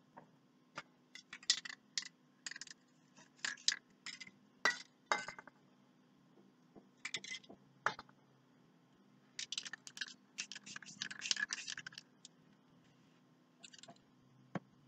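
Clusters of short, quick scratching strokes, typical of a thin blade scraping rays into wet spray paint on poster paper, mixed with light clinks of small paint caps and containers being handled. The strokes come in bursts, with a pause in the middle.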